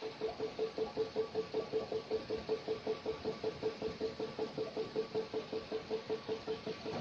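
High-speed die-cutting machine running, its press cycling in an even rapid beat of about five to six strokes a second, each stroke carrying a short pulsing hum.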